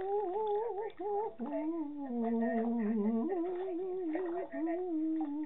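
A woman humming a wandering tune, holding notes that slide up and down in pitch with no words.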